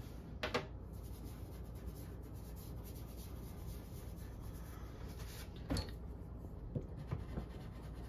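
Soft pastel being worked into watercolor paper by hand, a faint dry rubbing and scratching as the colour is blended with the fingertips. Two brief louder taps come about half a second in and near six seconds.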